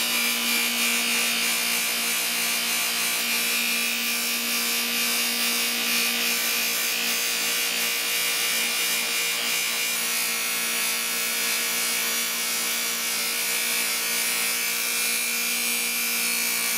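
Electric bench buffer running, its spinning cloth buffing wheel rubbing against small metal parts, an axle among them, as they are polished to a shine. A steady motor hum sits under an even rubbing hiss that does not change.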